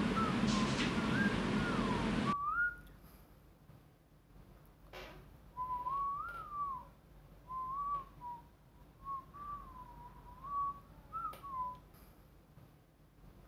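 A person whistling a slow tune in short, gliding phrases. For the first two seconds it is heard over a hiss of room noise, which then cuts off and leaves the whistling alone.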